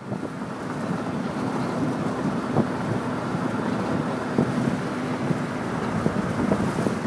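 Wind rushing over an open 1973 Ford Mustang convertible at driving speed and buffeting the microphone, over a steady low hum of the car's engine and tyres on the road.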